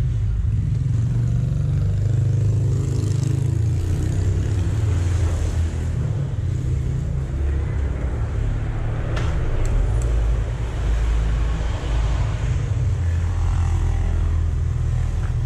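Yamaha RX-King's two-stroke single-cylinder engine running steadily at low revs.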